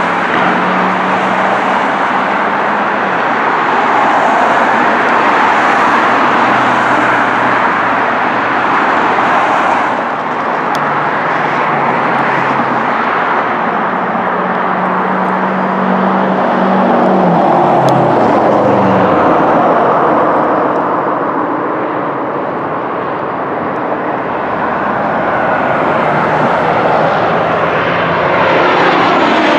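Jet airliner engines running loudly. First comes an airliner just after touchdown; from about ten seconds in, a Southwest Boeing 737-700 on final approach. Near the end its CFM56 engines grow louder and fall in pitch as it passes overhead.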